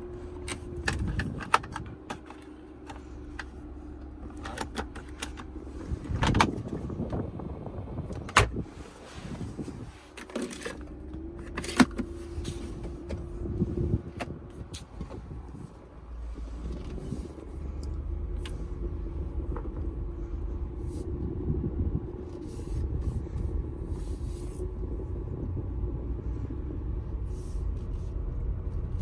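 Lexus GX470's V8 and tyres heard from inside the cabin as the SUV drives, a steady low rumble with a faint hum that grows louder about halfway through. Scattered clicks and knocks in the first half.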